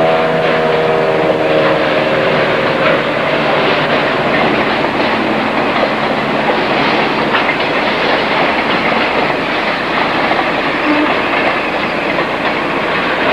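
A train rolling along dockside rails: a steady, loud rumble and rattle of wheels and cars with many sharp clacks. A pitched engine-like drone dies away in the first second or two.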